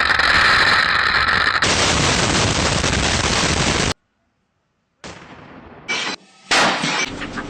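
Explosions and gunfire: a dense, loud blast and rumble for about four seconds that cuts off abruptly, then, after a second of silence, shorter spliced bursts of the same kind of noise.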